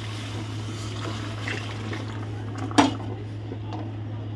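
Milk being poured into a steel pot of roasted ground rice and stirred in with a spatula: soft liquid splashing and stirring, with one sharp knock on the pot about three seconds in.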